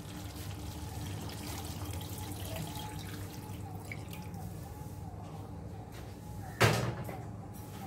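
Hot water poured from a bowl into a kadai of mutton curry, splashing into the gravy. A single sharp knock about six and a half seconds in.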